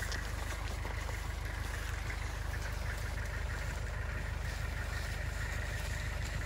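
An engine idling steadily with a low, even rumble and a faint steady whine above it.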